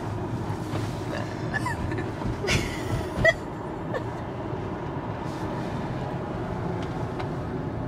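Steady tyre and wind noise inside a moving car's cabin, with a short sharp sound about three seconds in.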